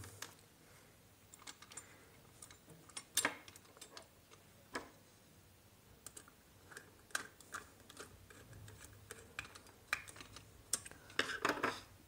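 Irregular small clicks and taps of hand work on a plastic switchboard: a screwdriver turning brass terminal screws and a copper wire being fitted into a terminal.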